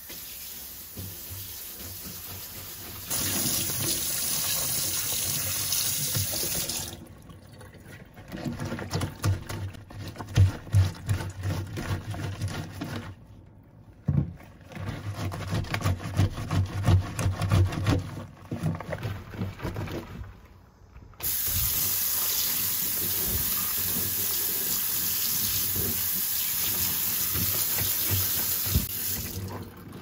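Kitchen tap running into the sink in two steady stretches. Between them comes a stretch of irregular knocking and rubbing, as of things being washed and handled in the sink.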